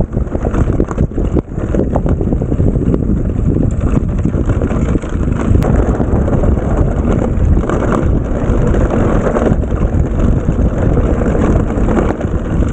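Wind buffeting an action camera's microphone as a mountain bike rolls fast along a rough trail, with the bike's frame and parts rattling and knocking over the bumps.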